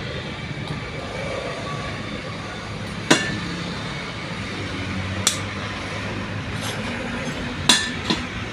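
Three sharp metallic clinks of tools on a propeller shaft while its worn universal-joint cross is replaced, over a steady low hum.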